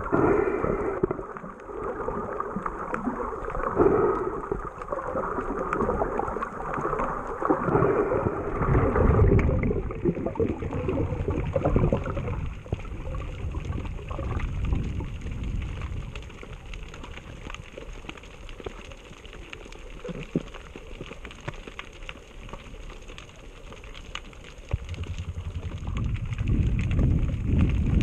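Underwater sound picked up by a camera in its housing: a gurgling wash of moving water with many faint clicks throughout. It is louder for the first ten seconds or so, then settles, and a low rumble builds near the end.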